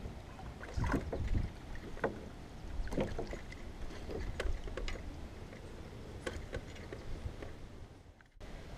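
Footsteps along a fallen dead tree trunk over a river: irregular knocks and creaks of dry wood under each step, over a steady low rumble. The sound cuts out briefly near the end.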